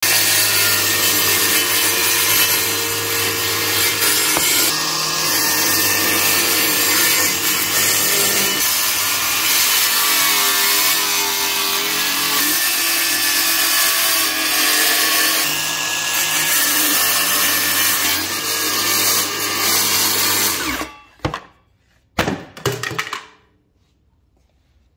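A brushless cordless mini circular saw running at full speed and cutting through a white panel, its steady motor whine changing with the load as the blade works through the cut. It stops about 21 seconds in, and two short bursts of noise follow a second or two later.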